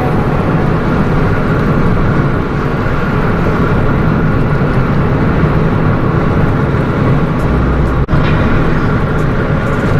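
Steady rumble of a moving car, road and engine noise, with a very brief dropout about eight seconds in.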